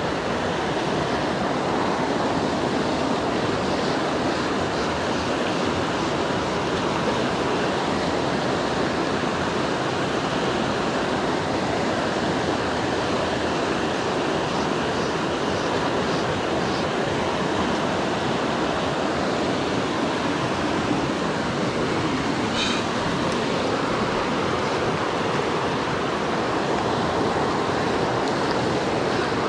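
River rapids rushing over rocks close by, a steady, unbroken roar of white water. A single brief click about three-quarters of the way in.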